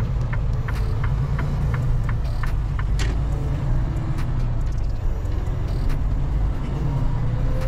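Semi-truck engine running with a steady low rumble heard from inside the cab, while the turn signal ticks about three times a second for the first second and a half during a left turn. A single sharp click comes about three seconds in.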